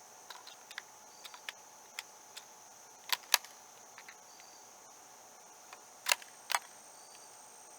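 Sharp mechanical clicks from handling a Savage B22-V rifle: a few light ticks, then two pairs of louder clicks about three seconds apart. Under them, a steady high buzz of crickets.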